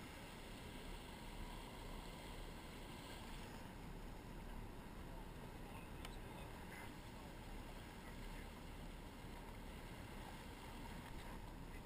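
Steady low rumble of a sportfishing boat under way: engine drone mixed with water washing along the hull.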